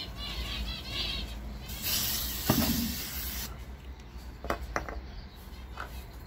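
Insecticide spray being sprayed into a wooden nest box: a single hiss of about a second and a half, starting about two seconds in.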